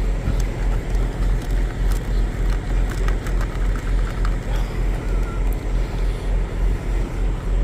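Large engine idling with a steady low throb, about three beats a second, along with a few light clicks of small steering-wheel parts being handled.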